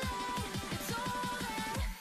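Background electronic music with a steady kick-drum beat, about four a second, under a held melody line.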